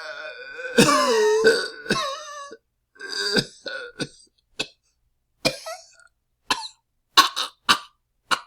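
A man coughing. First comes a drawn-out, wavering vocal stretch lasting about two and a half seconds, then a string of short, separate coughs spaced roughly half a second to a second apart.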